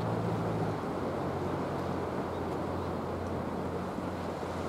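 A low, steady engine drone, dropping slightly in pitch about a second in, over wind and sea noise.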